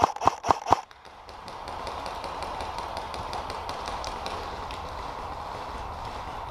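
Airsoft gun firing a quick string of four shots near the start, then fainter scattered shots from other players' guns over a steady background hiss.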